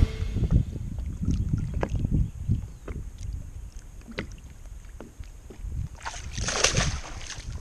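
Lake water sloshing and small splashes as a largemouth bass is held by the lip in the water and released, with a louder splash about six seconds in as the fish swims off. A steady low rumble runs underneath.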